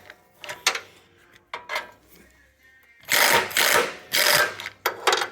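Ratchet wrench clicking in bursts as a rusted nut, loosened by freeze-spray penetrant, is backed off. There are two short bursts, then three longer runs of rapid clicking in the second half.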